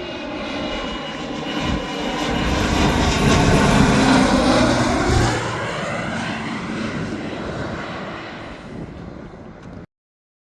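An engine passing by. It builds to its loudest a few seconds in, then drops in pitch as it goes past and fades, before the sound cuts off abruptly near the end.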